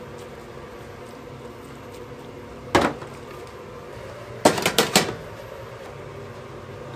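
Stainless-steel hotel pans clanking in a prep table: one clank a little under three seconds in, then a quick run of four or five clanks about a second and a half later, over a steady background hum.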